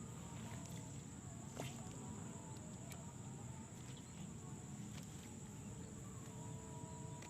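Quiet outdoor background: a steady low rumble with a faint, constant high-pitched whine and a few soft clicks.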